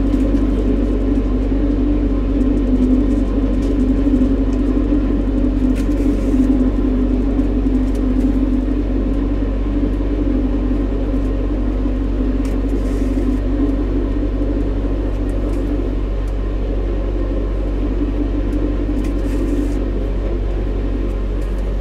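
Narrowboat's diesel engine running steadily under way, heard from inside the boat as an even low drone.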